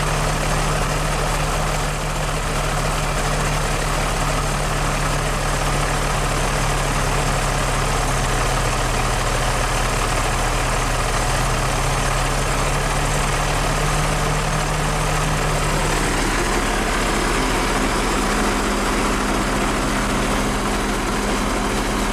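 Snow groomer's diesel engine idling steadily, its note shifting slightly about three-quarters of the way through.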